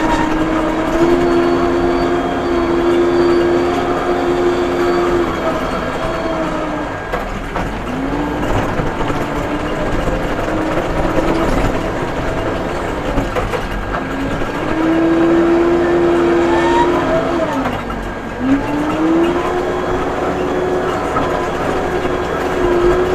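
Case 580M backhoe loader's diesel engine running under hydraulic load, its pitch rising and falling several times as the arm and bucket work.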